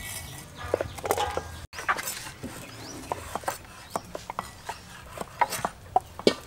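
Several knives chopping red chilies on wooden chopping boards: quick, irregular knocks of blade on wood, some overlapping.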